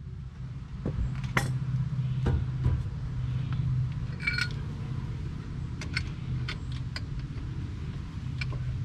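A steady low mechanical hum, with scattered light metallic clicks and a brief ringing clink about four seconds in, from tools and truck suspension parts being handled.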